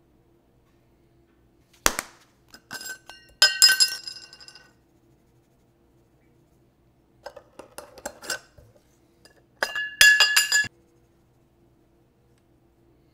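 Glass spice shakers clinking and rattling as they are handled and shaken out. There are two loud clusters of ringing clinks, about three and a half seconds in and again about ten seconds in, with softer clicks between them.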